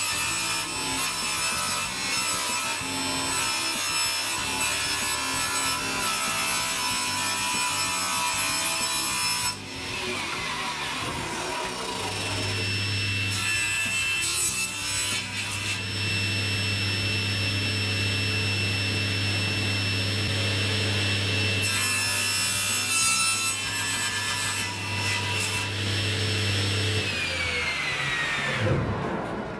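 Table saw ripping long strips of laminate board: the spinning blade gives a steady high whine under the rasping noise of the cut. About nine seconds in, the motor is switched off and the whine falls away as it winds down. The saw then starts again, makes a second long cut, and winds down once more near the end.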